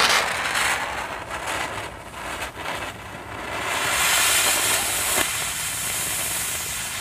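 A homemade solid-fuel rocket motor, fitted with its smallest nozzle, fires on a static test stand. It starts with a loud whoosh at ignition, then hisses roughly as it spits a jet of sparks and smoke, with a few crackles. The hiss grows harsher about four seconds in. The builder judges this motor faulty.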